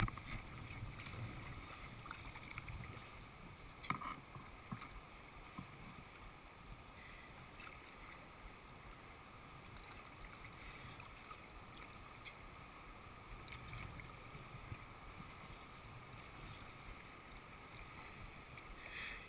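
Kayak paddle strokes dipping and dripping, with river water lapping along the hull, and a sharp knock about four seconds in.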